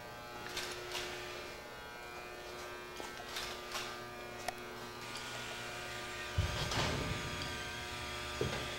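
Steady electrical buzz made of several even tones, with a few faint clicks, and a low rumble for a couple of seconds near the end.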